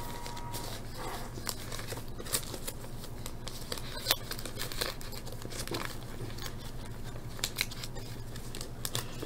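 Foil trading-card pack wrappers crinkling in gloved hands, in quiet scattered crackles and small ticks.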